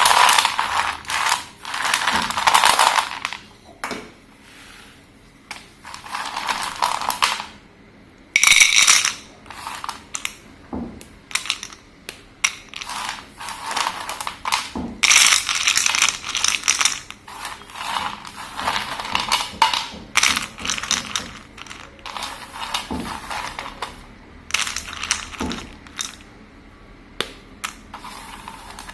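Slate pencil being crushed and crumbled by hand: rapid crunching and cracking in bursts of one to three seconds, with short pauses between.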